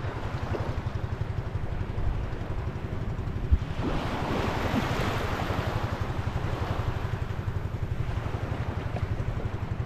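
Wind buffeting the microphone with a steady low rumble, over the wash of water and waves, which swells from about four seconds in; a single knock about three and a half seconds in.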